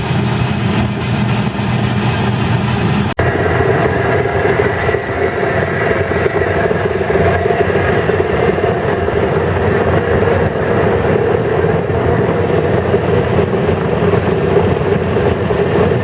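Potato-unloading machinery running steadily: truck engine and conveyor belts at a storage cellar's stinger. The sound changes suddenly about three seconds in, from an engine-like hum to a steadier mechanical drone.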